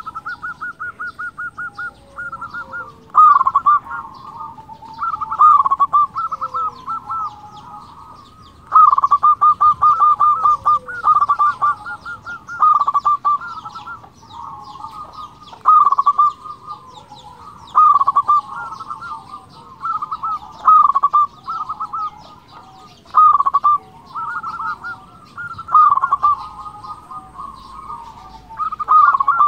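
Zebra dove (perkutut) cooing in full song: phrases of rapid staccato coo notes, repeated every two to three seconds.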